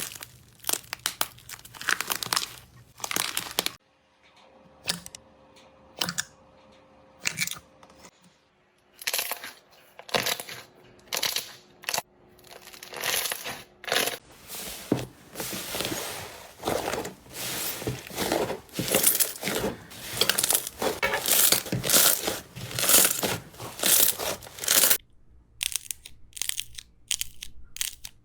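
Slime being pressed and pulled apart by hand close to the microphone, giving short crackling and tearing noises, sparse at first and coming thick and fast from about halfway through.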